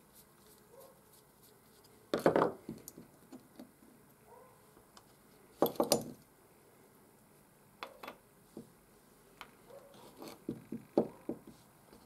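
Small metal parts of a vintage ignition key switch clicking and clinking as it is taken apart with a screwdriver on a wooden workbench, in several short bursts of sharp taps.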